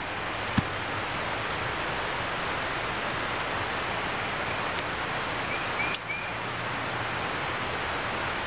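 Steady rushing outdoor background noise, with a few short high chirps and a sharp click about six seconds in.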